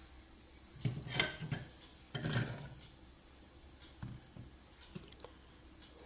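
Chopped raw jackfruit pieces tipped into a stainless-steel pressure-cooker pot, clattering against the steel in two bursts about a second apart, followed by a few light knocks.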